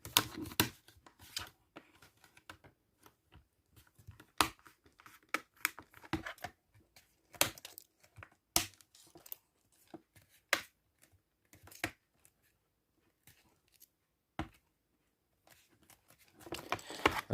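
Plastic screen bezel of a Lenovo ThinkPad T420 being pressed into place: a run of irregular sharp clicks and snaps as its clips engage.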